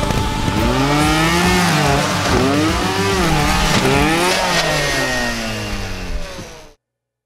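Trials motorcycle engine revving up and down in repeated blips, about one a second, then cutting off suddenly near the end.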